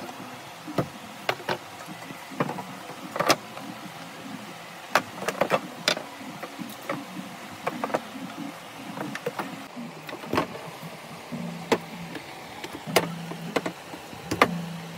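Plastic-wrapped tricycle parts, the metal frame and plastic wheels, being lifted out and set down on a table: irregular knocks and clacks, one or two a second, with a low hum coming and going in the background.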